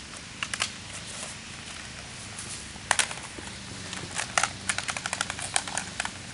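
Irregular sharp clicks and snaps, with one loud snap about three seconds in and a denser run of them in the second half, over a faint steady hum.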